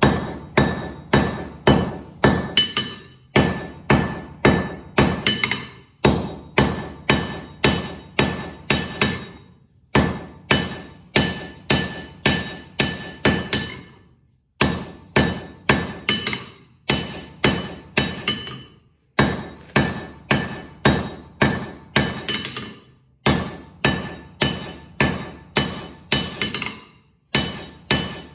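Hand hammer striking hot steel from an old file on an anvil to draw it out: steady blows about two or three a second, each with a bright ringing anvil tone, in runs of several strikes broken by short pauses.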